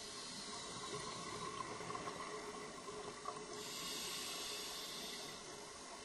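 Underwater sound picked up through a dive camera's housing: a steady hiss, with a brighter, louder hiss lasting about a second and a half a little after the middle, typical of a scuba diver's open-circuit regulator during an inhale.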